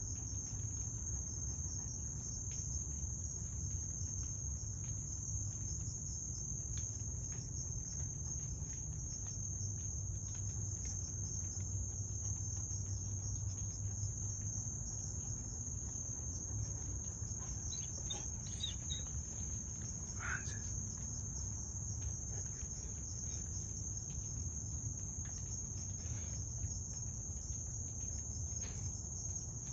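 Crickets trilling in a steady, unbroken high-pitched chorus over a low constant rumble, with a faint short chirp about twenty seconds in.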